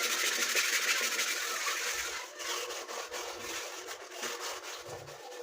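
Continuous rough scrubbing, a steady rasping rub.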